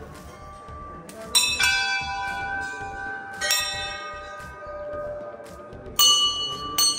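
Hanging brass temple bells struck about five times, in twos and singles, each stroke ringing on in long overlapping tones; the strokes differ in pitch, as from more than one bell.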